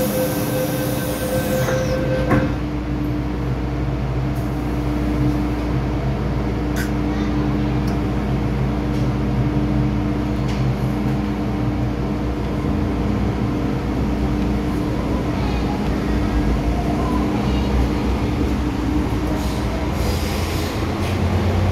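MTR M-Train metro car: door-closing warning beeps for about the first two seconds, ending in a knock as the doors shut. The train then runs with a steady low rumble of motors and wheels, growing louder near the end.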